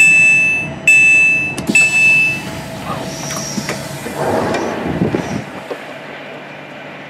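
Train passenger door alert beeping three times in quick succession, the signal that the doors have been released at a station stop, followed by a rush of noise and a thump.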